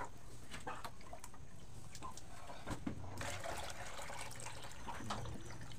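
Water poured from a small plastic cup into a plastic chicken drinker, trickling and splashing, with small plastic knocks as the containers are handled.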